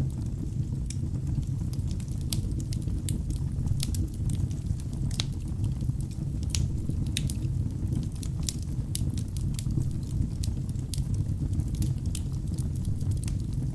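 Wood fire burning in a fireplace: a steady low rumble of flames with frequent irregular crackles and sharp pops from the burning logs.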